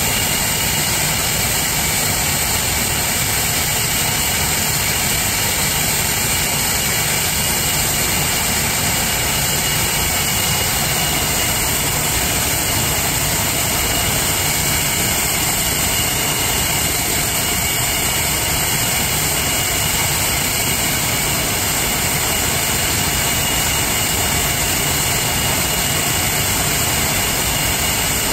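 The English Electric Lightning's two Rolls-Royce Avon turbojets idling on the ground: a steady roar with a thin high whine that does not change.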